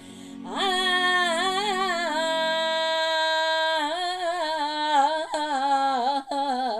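An older woman singing one long held note with a wavering vibrato. She slides up into it about half a second in, with a brief catch for breath near the end.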